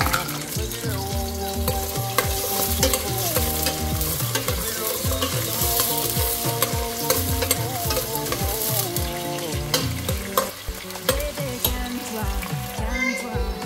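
Food frying and sizzling in a pot while being stirred, the spoon knocking and scraping the pot now and then, as the jollof rice is cooked. Background music with a steady beat plays underneath.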